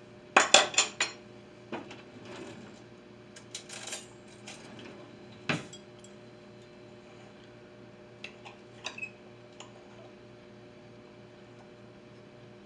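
Metal knife and fork clinking and scraping on a plate while a pancake is buttered and cut: a quick run of loud clinks about half a second in, then scattered single clinks, a sharp one near the middle and a few more shortly after.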